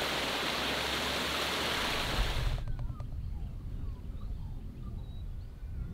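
A steady rushing hiss that cuts off abruptly about two and a half seconds in, followed by low wind rumble on the microphone and faint bird calls.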